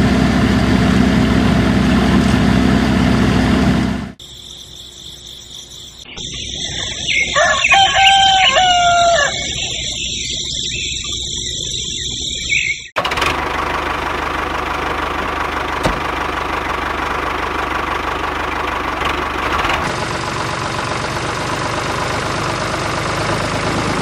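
A small electric motor runs steadily, breaking off after about four seconds. A rooster crows once near the middle, and then the motor runs steadily again.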